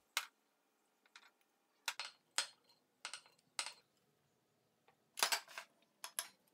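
Light clinks and taps of a ceramic bowl and chopped vegetables against a glass mason jar as ingredients are tipped and pushed into it: about ten short clicks at uneven intervals, a few bunched together a little after five seconds in.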